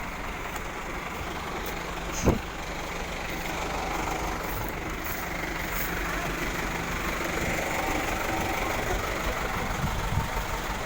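Vehicle engines running steadily on the road, with a sharp knock about two seconds in.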